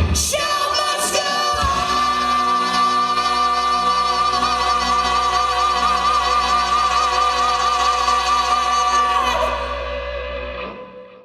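Rock musical number: a singer holds one long high note with vibrato over the band's sustained backing, and the music fades out near the end.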